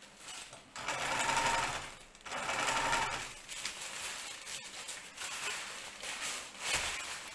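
Home sewing machine stitching a seam in two short runs of about a second each, followed by the rustle of kite fabric being shifted and repositioned, with a single sharp click partway through.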